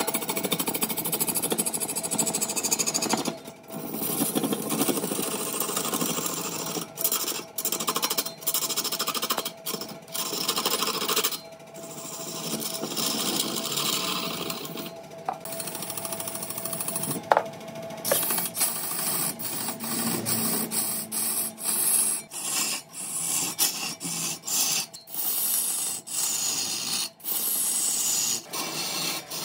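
Wood lathe spinning a large workpiece while a turning tool cuts into it: a steady hiss and scrape of wood shavings over a faint motor hum, chopped by many short abrupt breaks.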